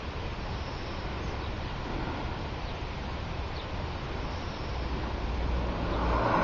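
Outdoor ambience: steady wind rumble and hiss on the microphone, with a road vehicle getting louder near the end.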